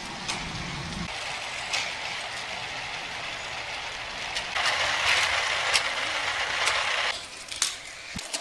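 Die-cast toy car running along an orange plastic Hot Wheels-style track, a steady rattle with sharp clicks, louder for a couple of seconds past the middle.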